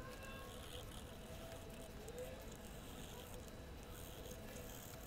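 Faint wet rubbing of cleaning paste being scrubbed over a coin with a stick, over a steady low hiss.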